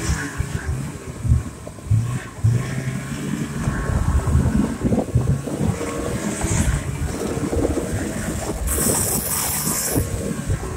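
Snowmobile engine running under the rider as it rides a bumpy snow trail, its pitch and level shifting with the throttle, with a couple of sharp jolts about a second or two in and wind buffeting the microphone. A burst of hiss comes near the end.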